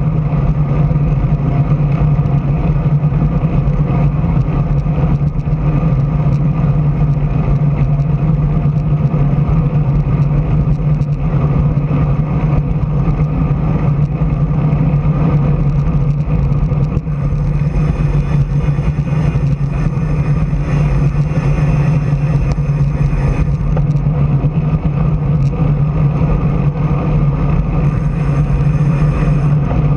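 Steady wind and road noise from a camera moving along with the riders, under a constant low hum. A brighter hiss swells in for several seconds past the middle and again briefly near the end.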